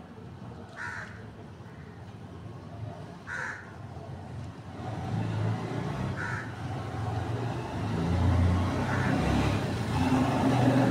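A bird gives four short calls, spaced a couple of seconds apart, while a low rumble builds over the second half and becomes the loudest sound near the end.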